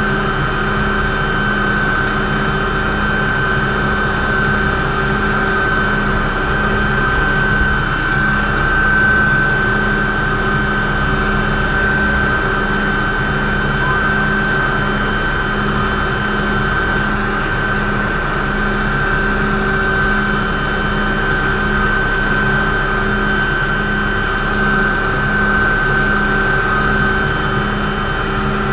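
Hughes 369HS (MD 500C) helicopter heard from inside the cockpit in low flight: the Allison 250 turboshaft's steady high whine over the broad noise of the rotor, held at an even power.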